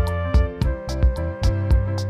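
Background music with a steady beat: regular percussion hits over sustained melodic tones and a bass line.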